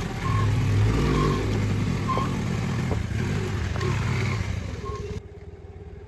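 A two-wheeler's engine running under a dense, steady rumble of road and wind noise. About five seconds in, the sound drops off abruptly to a quieter, duller background.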